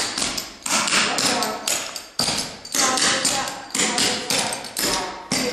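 Clogging shoes' metal taps striking a wooden floor in a quick, rhythmic run of steps, several sharp taps a second.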